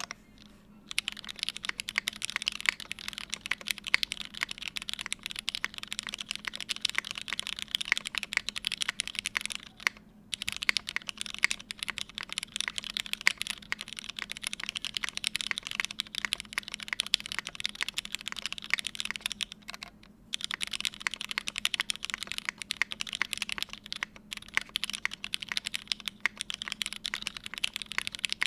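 Fast continuous typing on a Midway60 60% mechanical keyboard with Cherry Hyperglide black linear switches, lubed and filmed, in a half aluminium plate, under GMK keycaps. It starts about a second in, with two short pauses, near the middle and about two-thirds through.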